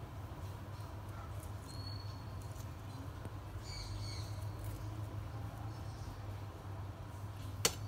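Knife scraping seeds and pulp from tomato slices on a wooden cutting board: a few faint short squeaks and one sharp tap near the end, over a steady low hum.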